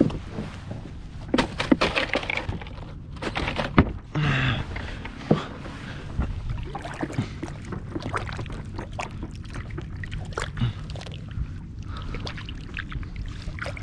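Water sloshing and splashing, with scattered sharp knocks and clicks of handling, clustered in the first few seconds and then smaller ticks.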